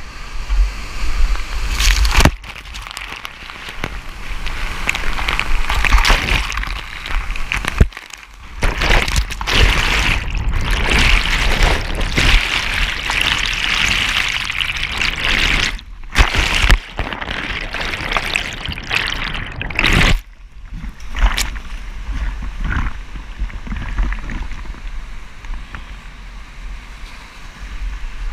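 Floodwater whitewater rushing and splashing around a kayak as it runs a waterfall at high flow, heard close up at water level. The noise surges and drops out sharply a few times as the kayak is churned through the fall.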